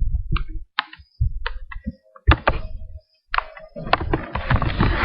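Several scattered knocks and low thumps with short gaps between them, then a steady noisy hiss from about three and a half seconds in.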